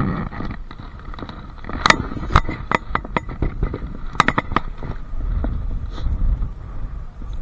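Wind rumbling on the microphone. Between about two and five seconds in comes a run of a dozen or so sharp clicks and knocks from fishing gear being handled: the keep net and its rope being hauled in by hand.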